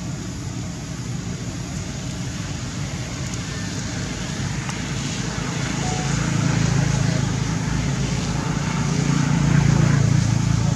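Steady low hum of a vehicle engine, growing louder over the second half.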